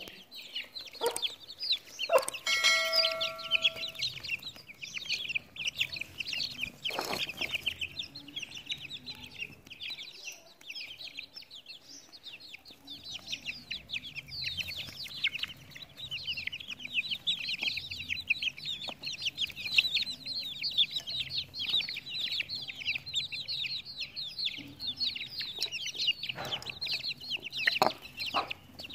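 A flock of young Aseel chickens peeping and chirping while they feed. It is a dense, unbroken chatter of many short, high calls.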